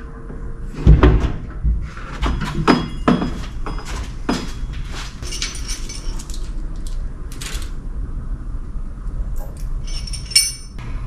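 Irregular metal clanks, knocks and clinks of tools and parts being handled and set down, with a heavy knock about a second in and a bright ringing clink near the end.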